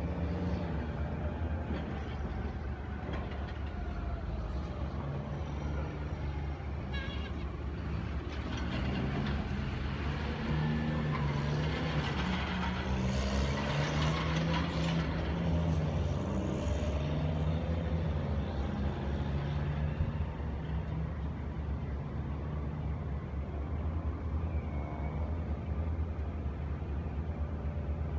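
Heavy diesel equipment working: engines running and revving, their pitch rising and falling, loudest about halfway through over a constant low rumble.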